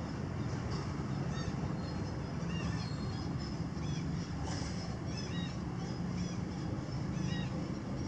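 Monkeys giving short, high-pitched squeaking calls, one every second or so, over a steady low rumble.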